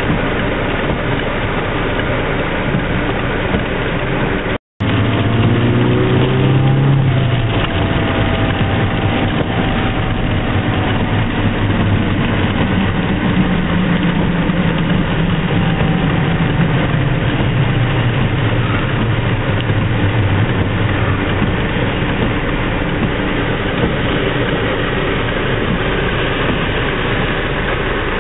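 Car engine and wet-road noise heard from inside the cabin while driving in heavy rain, under a steady hiss. The engine's pitch falls twice as the car slows, and the sound cuts out for a moment about five seconds in.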